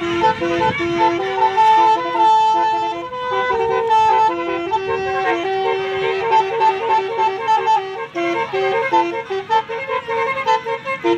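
Bus basuri 'telolet' horn playing a melody: a quick run of short held horn notes stepping up and down between a few pitches.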